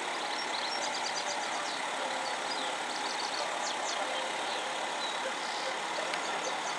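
Steady background hum of distant road traffic, with small birds chirping high and briefly through the first few seconds.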